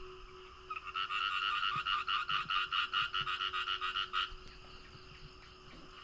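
A frog calling: a rapid pulsed trill of about six or seven notes a second, starting just under a second in and stopping after about three and a half seconds.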